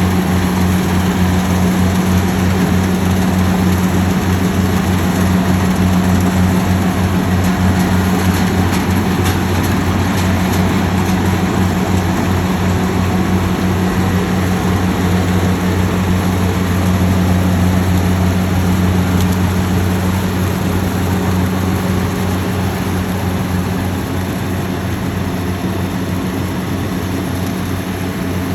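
Rice harvester's engine running steadily with a strong low hum, easing slightly in loudness over the last few seconds.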